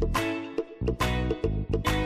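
Upbeat background music with a steady percussive beat and plucked, pitched notes.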